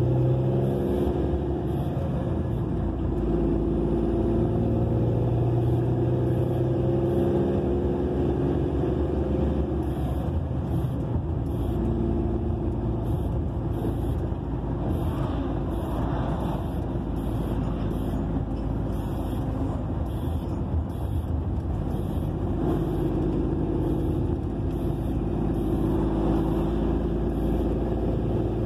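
Truck's diesel engine running at road speed, heard inside the cab with steady road noise, the engine note shifting a few times. A faint ticking about twice a second comes in through the middle.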